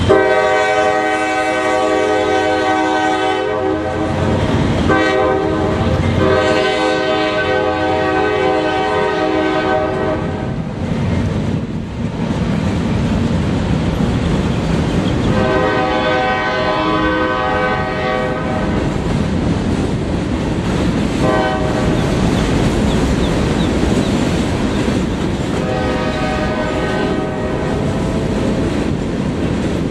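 CSX freight train rolling past, its cars giving a steady rumble and wheel clatter, while the locomotive's air horn sounds a series of blasts, mostly long with a couple of short ones, for grade crossings ahead.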